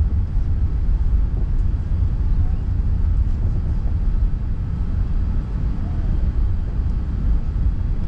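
Steady low rumble inside the cabin of an Airbus A380, its engine and airframe noise.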